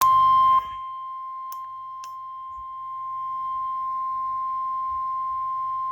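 Environment Canada Weatheradio alert tone: one steady high beep near 1,050 Hz, the warning alarm that comes before a weather bulletin. It is loud for the first half second, then holds on more softly, with two faint clicks.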